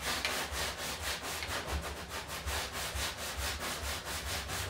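Hand sanding on the pickup's cab bodywork: rapid, even back-and-forth rubbing strokes, about six a second.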